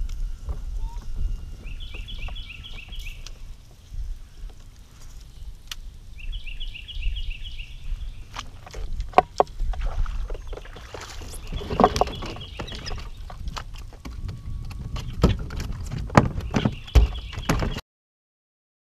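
Wind and water rumble around a fishing kayak on the water, with scattered knocks and clicks from gear and hull handling that come thicker in the second half. A bird's repeated chirping call comes in short runs four times. The sound cuts off abruptly near the end.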